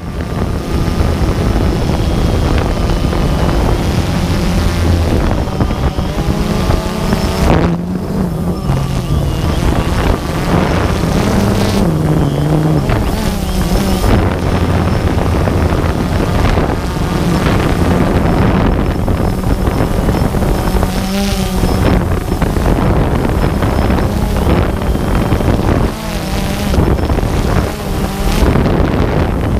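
Quadcopter drone's electric motors and propellers running steadily, picked up by the camera mounted on it, with wind buffeting the microphone. The pitch shifts up and down several times as the throttle changes.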